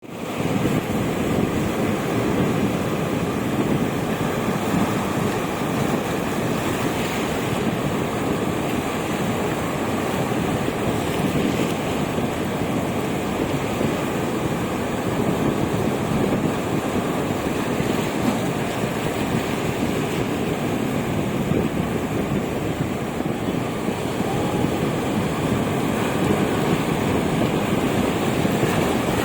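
Ocean waves breaking on a beach: continuous surf noise that fades in at the start and then holds steady with slight swells.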